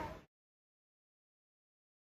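Silence: the audio fades out within the first quarter second and nothing is heard after.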